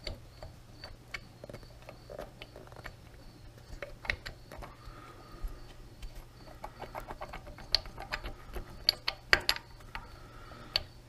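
Metal hand tools clicking and clinking against a lathe headstock fastener as it is worked loose. Scattered single clicks, with quick runs of clicks about two thirds of the way in and again near the end, over a steady low hum.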